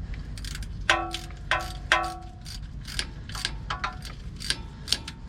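Socket ratchet turning in the oil pan riser's bolt hole after the threads have been cleaned with a tap: a run of sharp ratchet clicks every third to half second, with three ringing metal clinks between about one and two seconds in.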